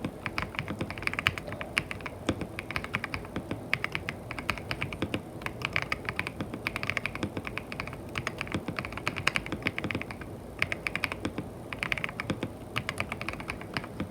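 Mechanical keyboard fitted with KTT Strawberry linear switches being typed on quickly and continuously, a dense patter of keystrokes with a brief lull about ten seconds in.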